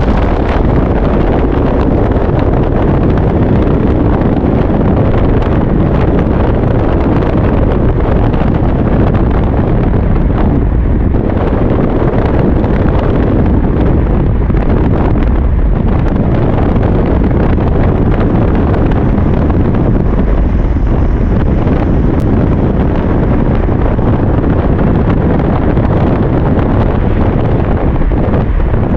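Steady wind buffeting the microphone over the rumble of a moving vehicle on the road.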